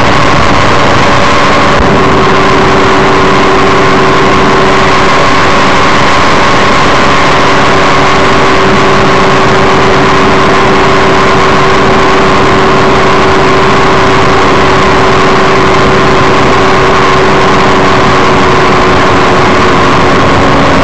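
Microlight trike engine and propeller running steadily in flight, a loud continuous drone with wind rush over the microphone; the engine's pitch shifts slightly about two seconds in.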